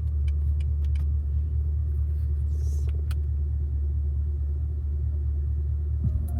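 Holden VE Commodore SSV's 6.0-litre V8 idling steadily: a low, even rumble heard from inside the cabin, with a few faint clicks. Near the end, music from the car's radio starts.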